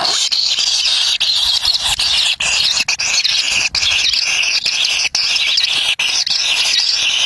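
Kingfisher chicks begging: a dense, continuous high-pitched squeaky chatter of many overlapping calls.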